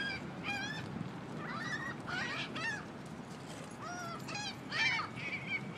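Birds squawking and honking in quick, overlapping harsh calls as they fight, with a louder burst of calls near the end.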